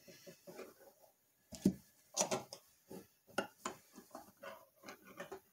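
A butter knife clicking and scraping against the metal lid of a pull-top tin can, prying it open after the pull-tab broke off. Irregular light clicks and scrapes, a few of them louder.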